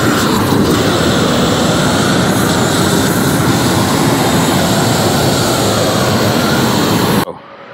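Propane roofing torch burning with a loud, steady rushing noise as it heats the underside of a torch-down membrane roll being unrolled. The noise cuts off abruptly near the end.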